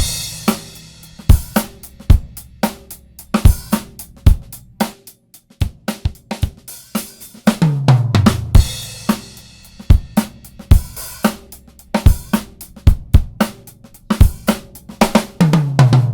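Recorded drum kit playing a groove of kick, snare, hi-hat and cymbals, heard through a Mother WAI 2950 three-band EQ (a Siemens W295 reissue). A low fill falls in pitch about eight seconds in and again near the end.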